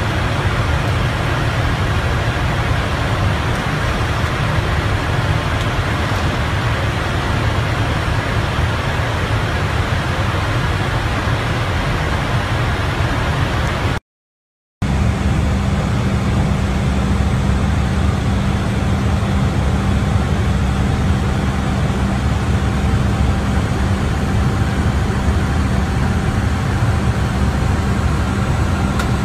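Steady rush of airflow and engine noise heard inside an airliner cockpit in cruise. It cuts to dead silence for under a second about halfway through, then resumes with a steady low hum underneath.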